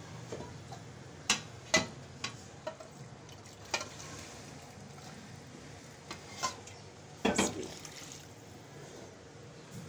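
Water poured from a steel mug into a large metal pot of simmering beef stock and masala, as water is added to cook pulao rice. A few sharp clinks of the mug against the pot, the loudest about seven seconds in.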